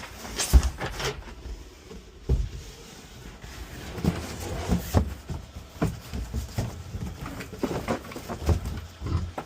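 A cardboard box being handled and a vacuum cleaner fitted into it: irregular thumps and knocks with scraping and rustling of cardboard.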